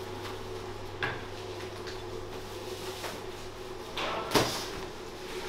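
Crisp baked lahmacun flatbreads being handled and set down on a slatted wooden rack and on a stack: a few light knocks and slaps, the loudest about four seconds in, over a steady low hum.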